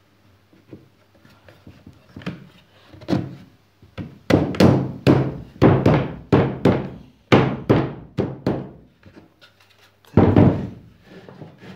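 Plywood parts of a spindle-sander frame knocking together as the slotted joints are fitted, in a dull wooden thunk each time. There is a quick run of about a dozen knocks, roughly two a second, then one more near the end.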